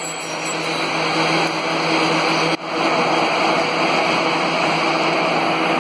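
Cardboard pizza-box production machinery running: a loud, even mechanical din with a steady low hum, broken by a momentary drop about halfway.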